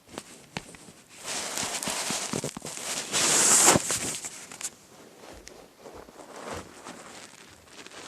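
Sigma Mobile Comfort 50 ringtone playing through the phone's small speaker. It is a noisy, crackling sound-effect tone full of scattered clicks that starts abruptly, swells to its loudest about three seconds in, then thins out.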